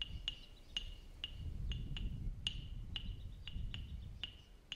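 Sharp ringing ticks repeating about twice a second, an animal call from the creekside wildlife, over a low rumble of wind on the microphone that swells in the middle.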